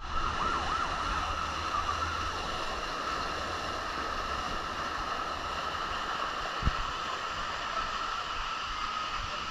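Water running down the slide and churning into the splash pool, a steady rushing hiss with a continuous high whine over it. A single low thump comes about two-thirds of the way through.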